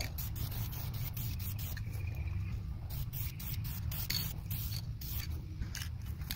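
Aerosol spray can of gloss clear coat hissing in short, irregular bursts as it is sprayed onto a plastic costume piece, over a low steady rumble.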